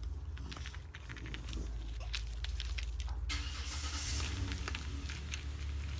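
Raccoons scuffling at a pool's edge: scattered clicks and knocks with a brief hiss about three seconds in, over a steady low rumble.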